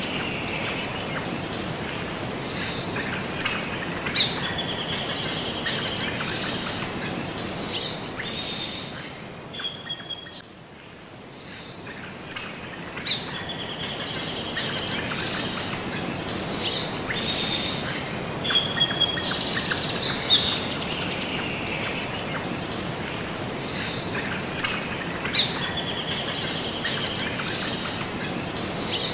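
Birds chirping and singing, high trilling phrases over a steady hiss. The same stretch of birdsong comes back about every ten seconds, as in a looped nature recording.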